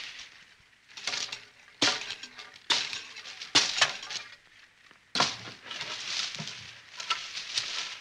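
Bolo knife chopping: about six sharp strokes, roughly one a second with a short pause midway, each a crisp crack with a brief crackling tail.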